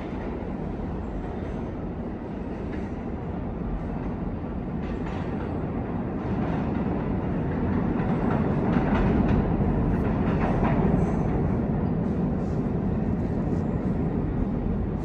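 New York City subway train rumbling in the tunnel, growing steadily louder as it approaches the station, with a few clicks of wheels over rail joints in the second half.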